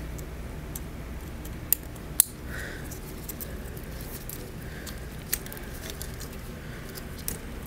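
Small sharp plastic clicks and handling rustle of wiring connectors as a fuel injector plug is unplugged and a Power Commander harness plug is worked into place. The clearest clicks come about two seconds in, another about five seconds in, over a low steady hum.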